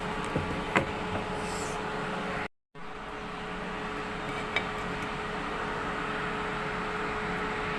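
Steady machine noise with a constant hum, cut off by a brief dropout about two and a half seconds in before carrying on.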